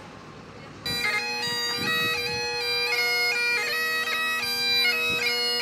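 Great Highland bagpipe played by a street piper: steady drones under a stepping chanter melody. It comes in suddenly about a second in, after faint street noise.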